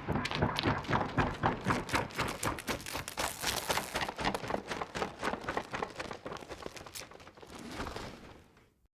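An AI-generated sound effect: a rapid, even series of knocks, about five or six a second, like running steps or hoofbeats, that slowly fades, swells briefly near the end and then cuts off.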